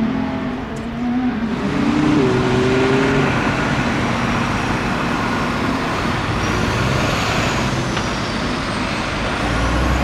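Ferrari F1-75 Formula 1 car's turbocharged 1.6-litre V6 hybrid engine running out on track. Its pitch rises about two seconds in, and it then settles into a steady, dense sound with a high whine sliding up and down in the second half.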